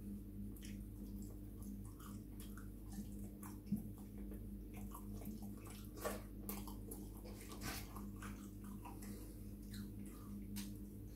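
Quiet eating sounds: scattered short mouth clicks and lip smacks from chewing chips and licking fingers, with a sharper click twice. A faint steady low hum runs underneath.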